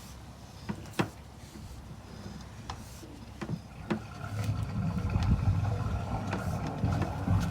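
A few light clicks and knocks from the sewer inspection camera being pulled back through a 4-inch ABS drain line. About four seconds in, a louder low rushing rumble sets in and holds: a toilet flush coming down the line.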